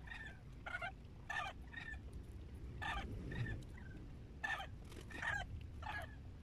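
Chickens clucking, a series of short calls about twice a second, over a low steady rumble.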